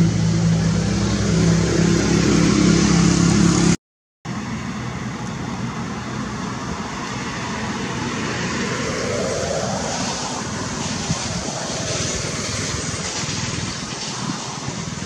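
A motor vehicle engine running with a steady low hum, cut off abruptly by a brief silence about four seconds in. After the silence comes a steady noisy background with a faint engine pitch that rises and then falls, as of a vehicle passing.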